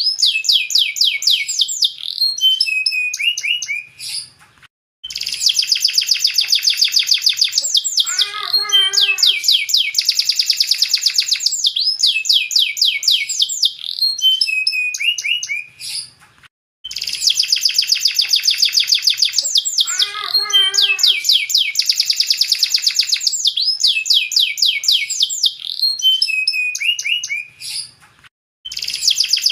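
Domestic canary singing long, very fast rolling trills, high-pitched. The phrases break off in short pauses about every twelve seconds, and a lower, slower warbling phrase comes twice.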